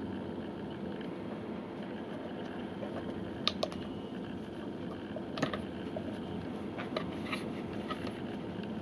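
Handling noise from a rubber Aqua Lung Hotshot open-heel diving fin being turned and flexed in the hands: scattered light clicks and creaks, the sharpest about three and a half and five and a half seconds in, over a steady low hum.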